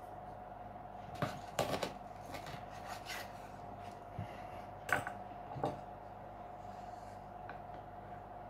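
Kitchen knife cutting through a baked pizza crust on a wooden board: a few rasping, crunching cuts about a second in, then sharper knocks of the blade against the board near the five-second mark. A faint steady hum runs underneath.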